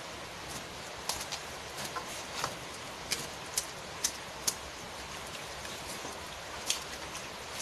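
Steady rain falling, with scattered sharp ticks, about eight in all and most between one and five seconds in.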